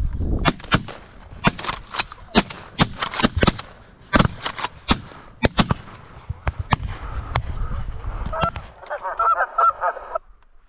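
A flock of Canada geese honking overhead: many short, sharp honks overlapping at an uneven pace, thickening into a quick run of calls near the end, with wind rumbling on the microphone.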